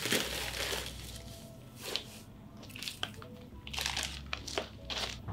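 Dry moss being pulled out of its plastic bag into a plastic tub: the crinkling of the packaging and the crunchy rustle of the dry moss fibres, in a series of short bursts.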